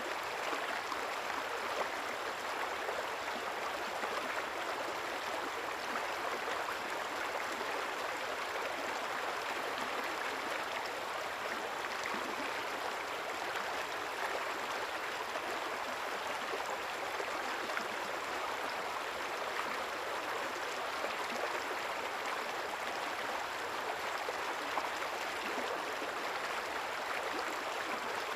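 River water flowing steadily, an even, continuous rush of running water.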